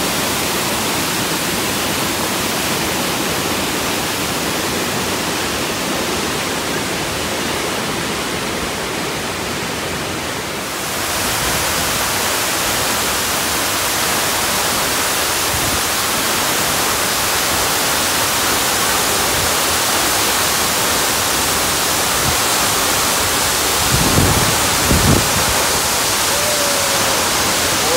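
Steady rushing of the Stuibenfall, a high mountain waterfall, a dense even roar of falling water. About eleven seconds in it turns brighter and a little louder, and a couple of brief low bumps sound near the end.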